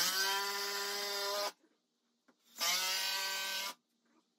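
Cordless drill driving long wood screws into a stud, in two runs: a steady motor whine of about a second and a half, a pause, then a second run of about a second.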